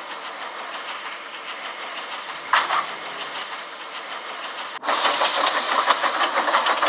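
Steam locomotive sound effect: a steady hiss of steam with a brief louder burst partway through, then, about five seconds in, a sudden louder hiss with a fast rhythmic clatter as the engine gets going.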